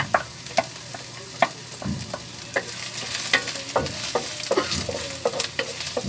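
Sliced ginger sizzling in hot oil in a metal wok, with a wooden spatula stirring it and knocking against the pan in irregular clacks.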